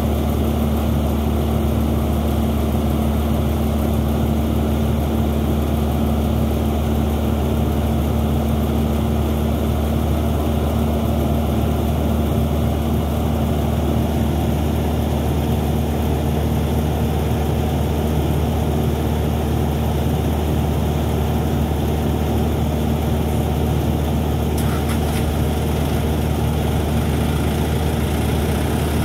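Hitachi 210 excavator's diesel engine running steadily at low revs, a deep even hum with no change in pace, while the arm slowly lowers a spare bucket hanging on a chain.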